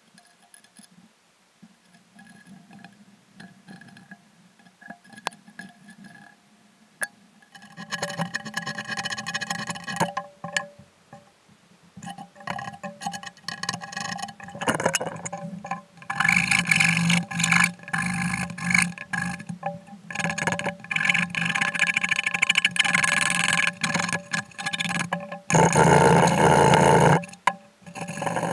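Sandpaper rubbed back and forth by hand over the bound end of a guitar fretboard, shaping it. Quiet at first with a few light ticks, then repeated rubbing strokes from about eight seconds in that grow louder past the middle.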